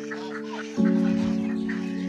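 Background music with held, sustained chords that change and grow louder about 0.8 s in, with chickens clucking faintly underneath.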